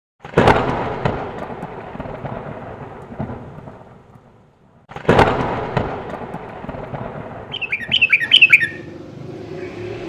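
Two loud thunderclaps, one about five seconds after the other, each rumbling away over a few seconds. A short run of quick bird chirps follows near the end.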